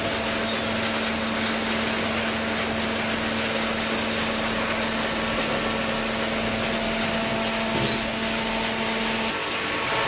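Hydraulic paper baler's electric motor and pump running, a steady hum over an even mechanical hiss; the hum stops shortly before the end.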